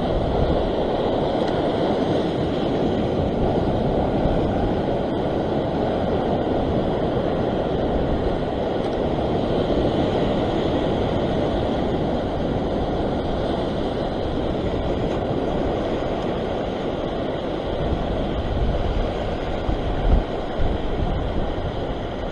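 Ocean surf breaking and washing across a rock shelf: a steady, even rush of water. A few low thumps come near the end.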